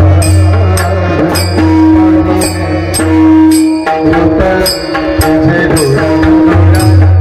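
Marathi devotional bhajan music: small hand cymbals (taal) struck in a steady rhythm about twice a second, over a drum and a sustained low drone, with melodic singing or instrumental lines wavering above.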